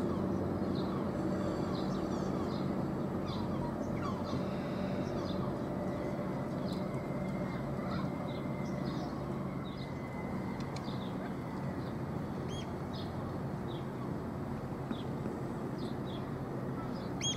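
Steady low drone from a passing large container ship's engines, with many short bird calls chirping over it.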